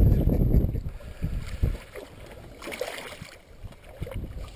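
Water splashing and slopping at the side of a small boat as a hooked pike thrashes at the surface, with scattered short knocks. Wind rumbles on the microphone during the first second and a half.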